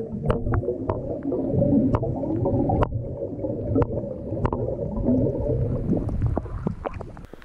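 Muffled gurgling and sloshing of lake water heard underwater through an action camera's housing, with many sharp little pops and clicks of bubbles. It grows quieter near the end as the camera nears the surface.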